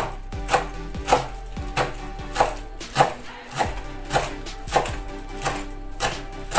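Kitchen knife chopping fresh parsley on a wooden cutting board: even knocks a little under twice a second. Background music plays underneath.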